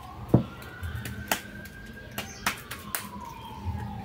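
Hands slapping and patting sesame-coated kömbe dough into patties, with one sharp slap about a third of a second in and a few lighter taps after. Behind it a siren wails, rising slowly for about two seconds and then falling.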